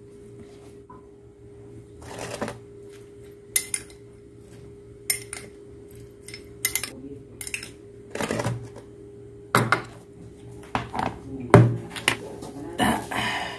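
Metal spoon clinking and scraping against a ceramic bowl while stirring chopped tomatoes, in irregular strikes with a heavier knock near the end, over a steady low hum.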